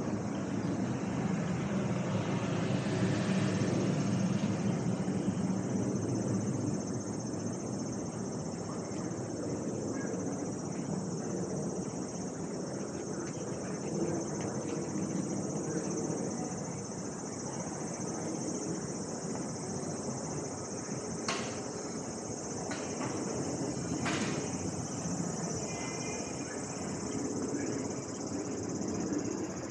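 Cicadas singing in a steady high drone over low street and traffic noise, which is louder in the first few seconds as a vehicle passes. A few sharp clicks come about two-thirds of the way through.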